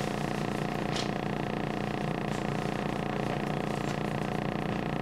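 Steady hum and whir of a standing 521 series electric train's onboard equipment, heard inside the car, with a few faint brief hisses.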